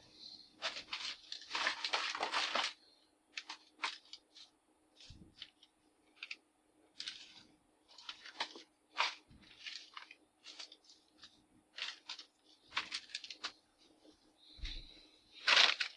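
Irregular scratching, rustling and clicking of small parts and tools being handled at the bench, made of short scattered noises of varying length, over a faint steady hum.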